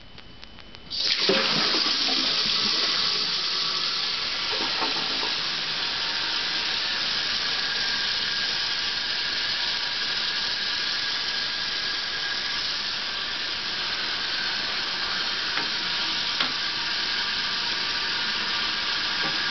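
A Pegasus 1.28-gallon Niagara Flush toilet being flushed: water rushes in suddenly about a second in, then the tank refills with a steady hiss.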